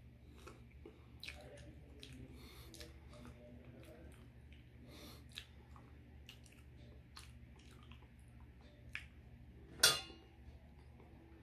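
Quiet mouth and hand sounds of a banana being peeled and eaten: soft scattered clicks and squishy chewing. One sharp click near the end is the loudest sound.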